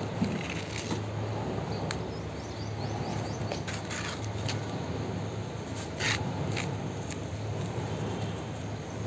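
Plastic toy vehicles scraping and clicking in sand, a few short sharp scrapes standing out, over a steady low hum.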